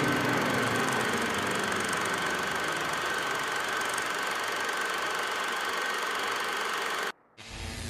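Steady, noisy droning background soundtrack with a thin high tone running through it, slowly fading, then cutting off suddenly about seven seconds in; another sound starts just before the end.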